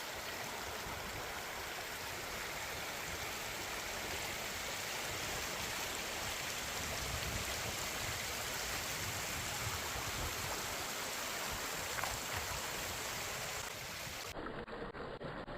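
Wadi water rushing and flowing steadily, a stream in spate after heavy rain. Near the end the sound drops and thins.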